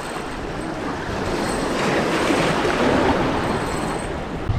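Surf washing onto the beach: a rush of water that builds to its loudest about halfway through, then fades.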